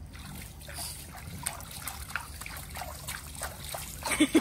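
Water in an inflatable paddling pool splashing and dripping as a hand flicks water and a pug wades, small splashes scattered throughout with a louder cluster of splashes near the end.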